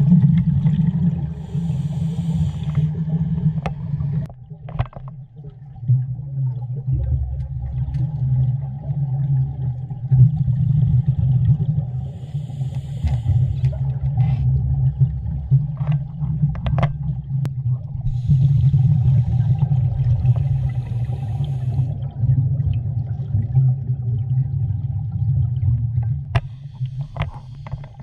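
A scuba diver's regulator breathing underwater, heard through the camera housing: a sharp hiss on each inhale that comes back every several seconds, over a steady low rumble of water and exhaled bubbles.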